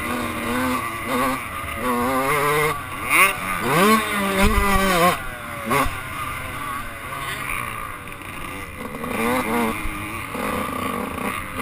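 Dirt bike engine revving up and down as the rider works the throttle and shifts gears on a motocross track, with wind noise on the microphone.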